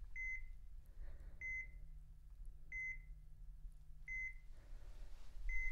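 Hospital heart monitor beeping steadily, five short high beeps about 1.3 seconds apart, each beep marking the patient's heartbeat.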